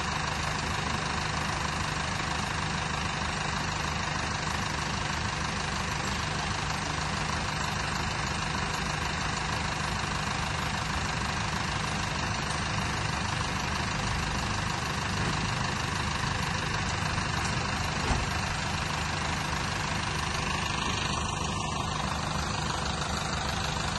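Flatbed recovery truck's engine idling steadily while the tilt bed holds the car, with one brief knock about eighteen seconds in.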